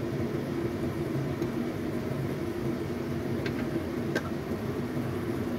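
A steady low hum with a hiss from a wok on a lit stove, with two faint clicks about three and a half and four seconds in.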